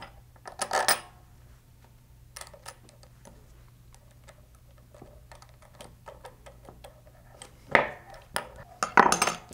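Small aluminum robot-kit parts (a side mount, screws, washers and a beam bracket) clicking and clinking as they are handled and fitted together, with light knocks against a wooden bench. There is a cluster of clinks about a second in, sparse soft ticks through the middle, and louder clinks near the end.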